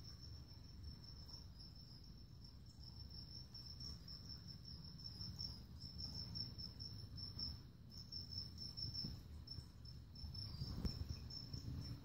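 A cricket chirping steadily, a high pulsing trill that never stops, over low handling rumble from the handheld phone, with a soft bump about eleven seconds in.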